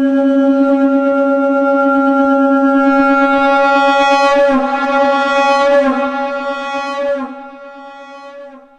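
Shankh (conch shell) sounding one long held note pitched at C#, steady and bright, with a slight waver in the middle; it drops in level about seven seconds in and dies away near the end.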